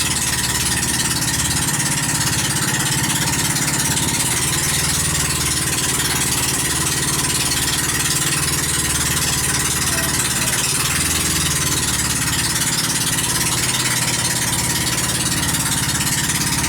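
Engine of a banca pump boat running steadily at constant speed, with a steady hiss over it.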